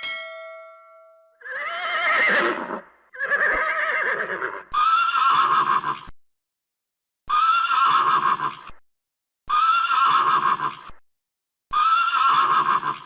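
Horse whinnying six times, each call about a second and a half long and cut off sharply, the same call repeated almost identically. A short ringing chime sounds right at the start.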